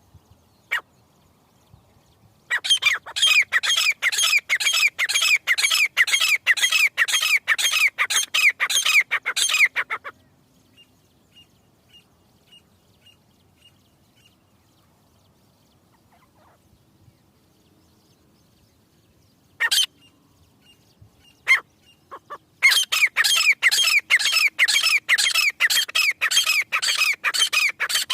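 Grey francolin (teetar) calling: a loud run of rapid, sharp, evenly repeated notes, about three a second, lasting some seven seconds. A quiet pause follows with a few faint chirps, then a second run starts a few seconds before the end.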